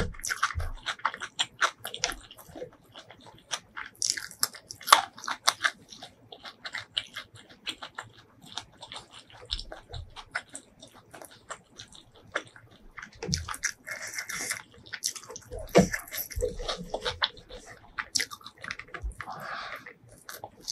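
Close-miked eating: a person chewing and crunching handfuls of rice and crispy fried fish, with many small wet mouth clicks and crackles.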